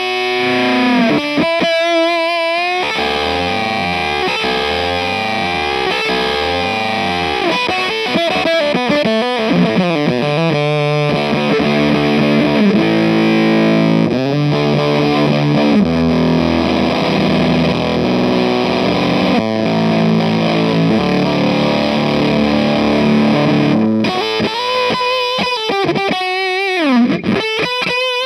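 Electric guitar played through an EarthQuaker Devices Terminal fuzz pedal, a take on late-60s Japanese fuzz, giving a thick distorted tone. Swooping pitch sweeps come in the first few seconds and again near the end, with held chords in between.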